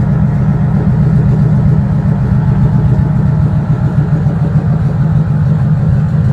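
1955 Chevrolet panel truck's engine running loud and steady through open headers at low cruising speed, heard from inside the cab.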